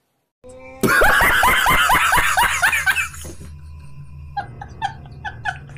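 A person laughing hard in rapid bursts, each falling in pitch, over a low hum. After about three seconds it eases into a quieter, steady run of chuckles.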